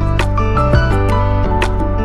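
Instrumental background music: struck notes over held low tones.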